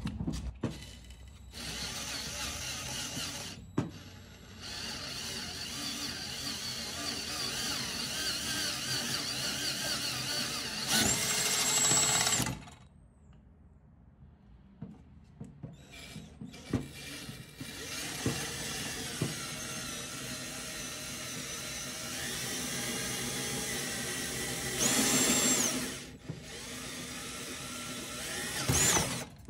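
Power drill boring out the bolt holes of a metal subframe plate to enlarge them. It runs in long steady stretches, stops for a few seconds about halfway, and twice briefly speeds up with a higher whine.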